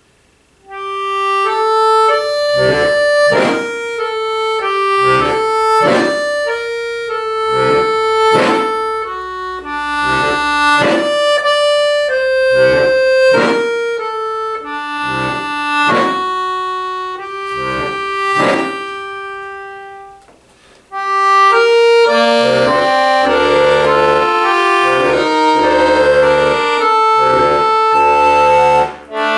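Piano accordion playing a contemporary classical solo: after a moment of silence it enters about a second in with held chords broken by sharp accented attacks. It drops away briefly near the two-thirds mark, then returns with dense held chords over deep bass notes.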